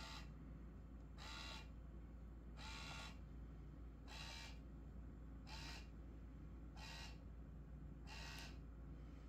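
Small electric motor of an automatic laser cat toy whirring faintly in short bursts, seven times, a little over a second apart, as it swings the laser dot to a new spot.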